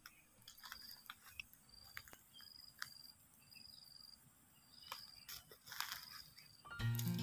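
Faint ambience of a bamboo thicket: a high chirp, like an insect's, repeating about once every half second to second, with scattered small crackles and clicks in the dry leaf litter. Background music comes in loudly near the end.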